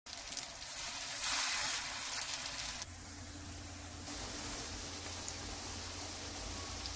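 Spam-and-tofu patties sizzling as they fry in cooking oil in a nonstick pan, a steady hiss that swells about a second in, then drops and shifts abruptly twice, near three and four seconds.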